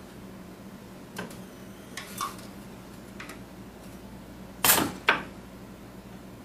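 Capacitor-discharge series resistance weld with parallel electrodes on a motor commutator: a few light mechanical clicks, then about four and a half seconds in a loud sharp crack from the weld, followed half a second later by a second sharp click, over a steady low machine hum.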